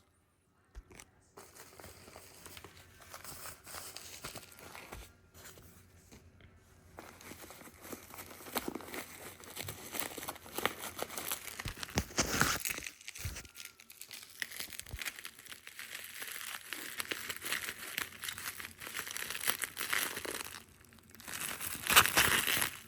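Packaging crinkling and tearing as a fragrance box is unwrapped by hand: an irregular run of crackles, louder around the middle and again near the end.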